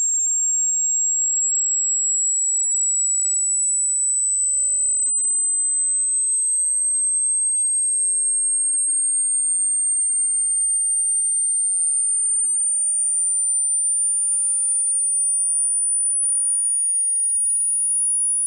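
A single very high-pitched pure electronic tone, held at a steady level and gliding slowly and evenly upward in pitch.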